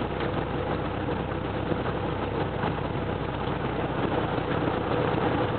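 Cessna 172's piston engine and propeller running steadily, with airflow noise, heard inside the cabin on final approach to landing.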